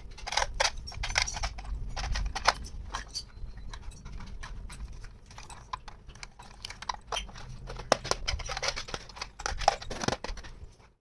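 Small plastic toy kitchen pieces and their packaging being handled: a run of irregular clicks, taps and crinkles.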